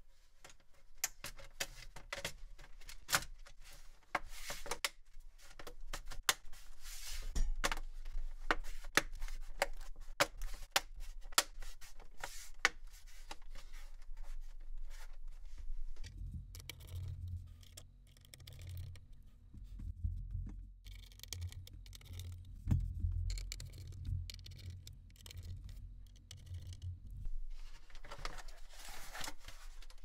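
Plastic snap clips of a Dell Latitude 3580 laptop's bottom cover clicking into place as the panel is pressed down along its edges: a long run of sharp clicks. In the second half a low steady hum takes over, and a few more clicks come near the end.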